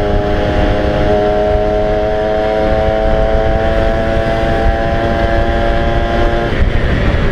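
Yamaha SS110 motorcycle engine running steadily under throttle while riding, its note rising slightly, then dropping away about six and a half seconds in. Heavy wind rumble on the microphone runs underneath.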